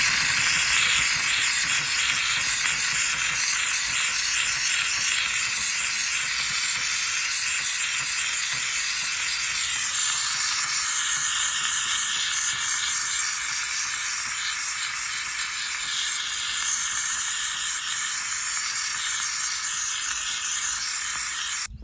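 Steady hiss of a pressurised cleaning jet working over foam-covered car pedals. It switches on and off abruptly, and its tone shifts slightly about halfway through.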